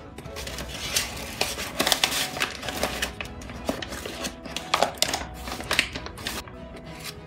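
Paper flour bag rustling and crinkling as a hand digs into it with a plastic measuring cup, a busy run of crackling with a few sharper clicks, over soft background music.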